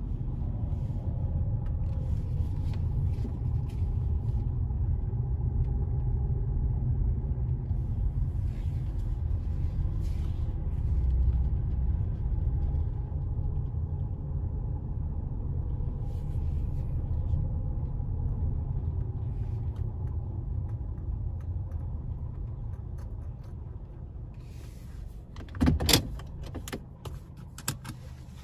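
Steady low road and engine rumble inside a moving car, fading as it slows. About two seconds before the end there are two sharp, loud clicks, then scattered light clicks and rattles.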